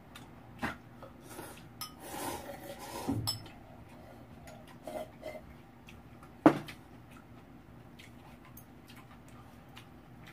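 Eating utensils clicking and clinking against a bowl of noodle soup, in scattered knocks, with one sharp loud clack about six and a half seconds in.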